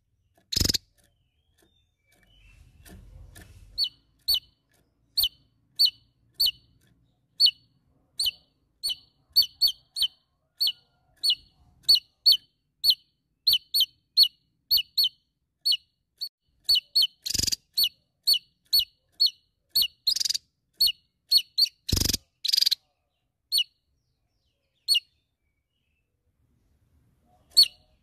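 Javan tesia calling, a long series of short, sharp, downward-slurred notes at about one to two a second, with a few louder sharp cracks among them. The notes stop a few seconds before the end.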